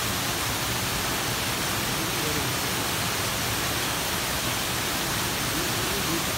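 Waterfall pouring steadily down a rock face: an even, loud rush of falling water that does not let up, with faint voices under it.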